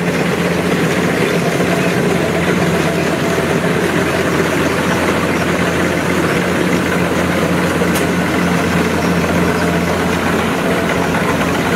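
Kubota tracked rice combine harvester running steadily while harvesting rice: a constant diesel engine hum under the noise of the cutting and threshing machinery.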